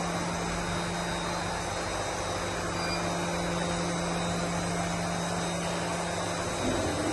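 Steady hum and hiss of industrial machinery running. Near the end the hum shifts and a lower rumble builds.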